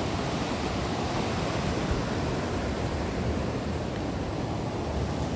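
A stream's water rushing steadily.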